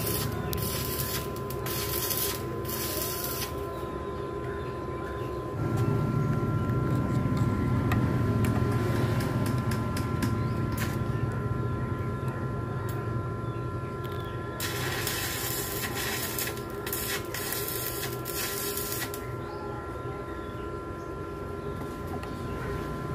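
Steady mechanical hum with a constant thin whine, growing louder about six seconds in as a second whine joins. Scraping and rustling handling noise comes from about fifteen to nineteen seconds in.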